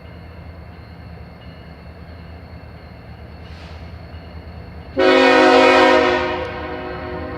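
A low steady rumble of a freight train. About five seconds in, a CN diesel locomotive's air horn sounds one loud short blast, a chord of several tones, which fades over the next second or so.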